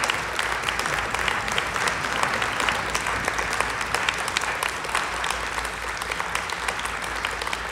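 Audience applauding: many people clapping in a steady, dense patter that eases slightly near the end.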